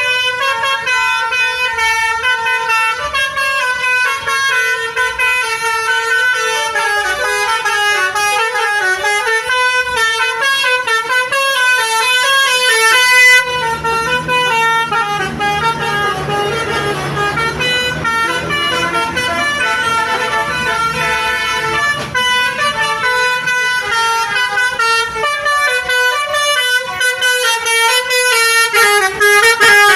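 Basuri V3 telolet musical bus horn playing a melody: a continuous run of loud multi-tone horn notes stepping up and down in pitch. For several seconds in the middle the notes blur into a denser, wavering chord.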